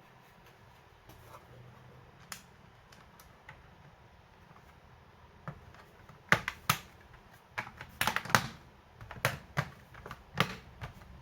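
Sharp plastic clicks and taps from laptop parts being handled: a few scattered clicks, then a quick cluster of clicks and knocks in the second half.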